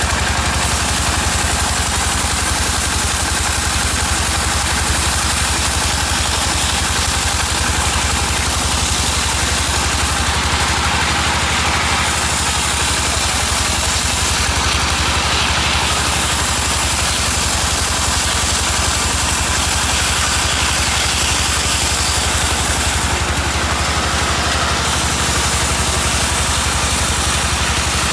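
Sawmill machinery running steadily: a deep engine drone with a constant hiss over it, changing little throughout.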